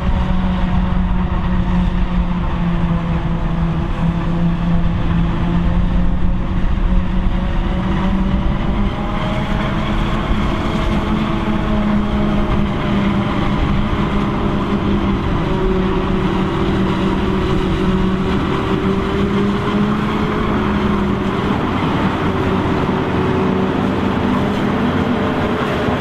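Self-propelled forage harvester chopping maize, its engine and chopper running with a steady heavy drone and hum, while a Case IH Optum 300 tractor runs alongside pulling the silage trailer.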